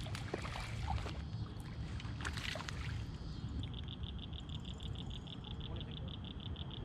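A hooked largemouth bass splashing at the surface as it is reeled to the bank, with scattered splashes and clicks in the first few seconds. From about three and a half seconds in, a steady high-pitched trill pulses rapidly and evenly, like a calling frog.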